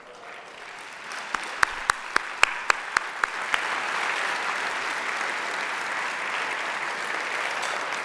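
Audience applauding, swelling over the first second and then holding steady. Several sharper, louder single claps stand out over the first few seconds.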